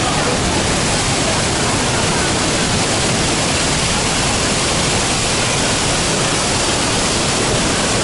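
Düden waterfall pouring into its pool: a loud, steady rush of falling water.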